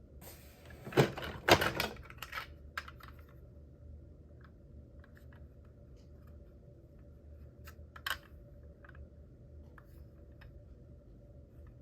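Clicks and knocks of small hard objects being handled: a dense cluster about a second in, then scattered light clicks and one sharper click around eight seconds in, over a faint steady hum.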